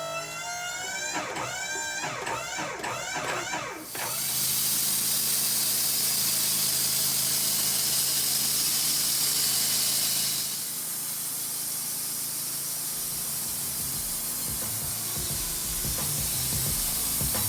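Wood-Mizer band sawmill cutting through maple burl: a loud steady hiss of the blade in the wood over the hum of the mill. It sets in about four seconds in, after a short stretch of string music, and eases off about ten seconds in while the mill keeps running.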